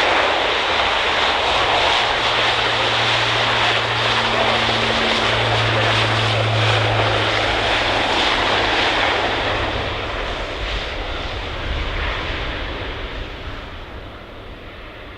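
Airbus A400M's four TP400-D6 turboprop engines and propellers roaring loudly as the aircraft flies past. The low hum shifts slightly about five seconds in, and the sound fades as it draws away in the last few seconds.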